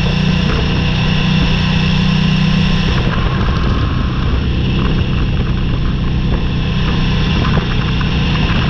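Motorcycle engine running steadily while riding on a gravel road, with tyre noise. The engine note drops about three seconds in, and scattered clicks of gravel follow.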